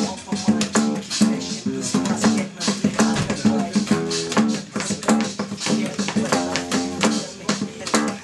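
Music led by plucked guitar notes over a steady beat.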